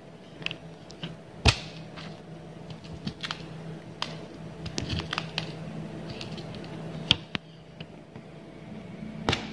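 Irregular light clicks and taps of hand bead embroidery: an aari hook needle picking sugar beads and pearl beads from a plastic lid and stabbing through fabric stretched taut on a frame. The sharpest clicks come about a second and a half in and near the end.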